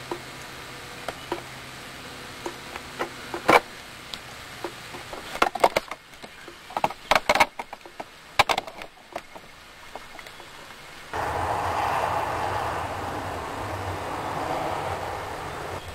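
Scattered sharp clicks and cracks of wood and bark close to the microphone, thickest in the middle. About eleven seconds in, a steady noise with a low hum takes over.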